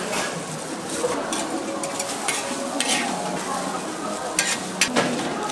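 Steady sizzling hiss, like food frying on a hot griddle, under the general din of a street-food stall, with a few short light clicks of food being handled.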